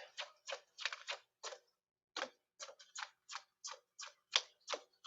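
A deck of tarot cards being shuffled by hand, with quick light card slaps about four a second and a brief pause about two seconds in.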